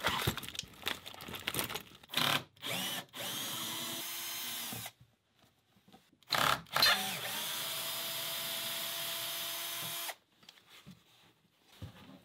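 Cordless drill-driver backing screws out of a boat's wooden galley cabinetry. Short stop-start bursts and knocks come first, then two steady runs of the motor, about two and three seconds long. A few small clicks follow near the end.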